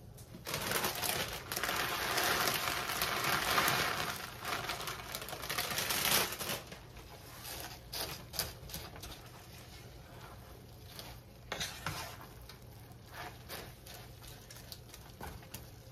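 Plastic snack bag crinkling and dry, crisp fried potato sticks being poured into a pan for about the first six seconds. After that, quieter clicks and crackles as a wooden spoon stirs them into the creamy codfish.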